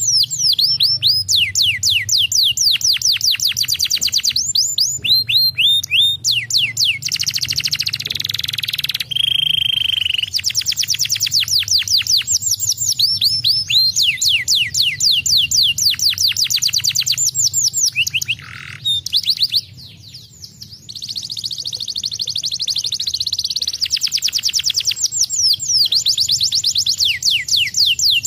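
Domestic canary singing: fast trills of repeated falling whistled notes, broken by a buzzy rolling passage and a clear held whistle about nine seconds in, with a short pause around twenty seconds.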